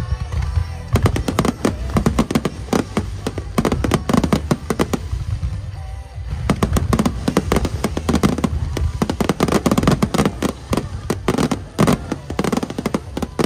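Fireworks bursting in rapid volleys of many sharp bangs over a low rumble, easing off briefly about six seconds in before another dense volley, with music playing underneath.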